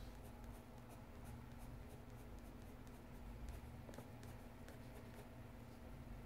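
Faint scratching of a coloured pencil shading on sketchbook paper, with light irregular ticks as the strokes go.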